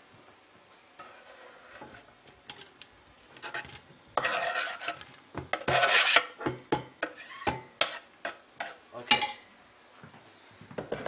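Chef's knife scraping chopped onion off a wooden chopping board into a stainless-steel stockpot: rasping scrapes of the blade on the wood, loudest in the middle, mixed with a run of sharp knocks of knife and board.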